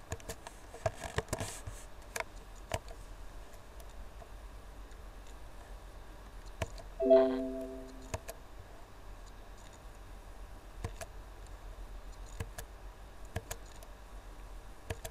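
Computer mouse clicking, several clicks close together in the first few seconds and single clicks after. About seven seconds in, a short Windows alert chime sounds once and fades, the system sound of an Excel message box popping up.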